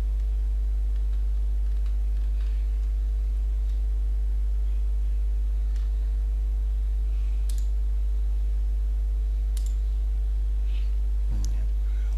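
Steady low electrical hum with a stack of evenly spaced tones above it, loud and unchanging, with a few faint mouse clicks in the second half.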